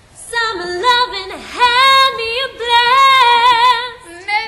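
An unaccompanied high voice singing long, wavering held notes in several phrases, without clear words.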